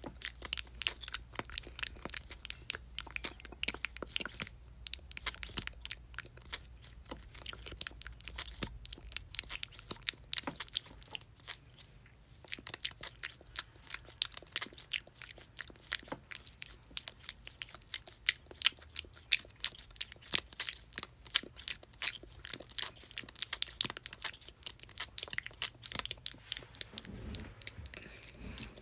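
Mouth sounds: a dense run of wet clicks and smacks, with short lulls about four and a half seconds in and again around twelve seconds.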